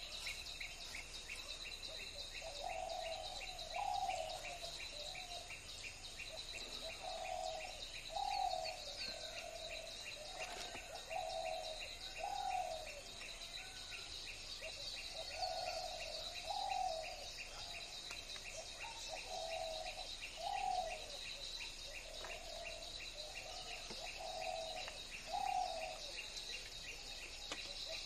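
A bird's two-part call, repeated about every four seconds, over a steady high chirring with fast, even ticking.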